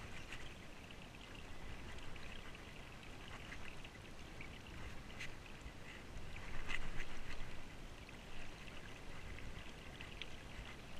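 Faint trickling and lapping of river water, with scattered light clicks and a slightly louder stretch about six to seven seconds in.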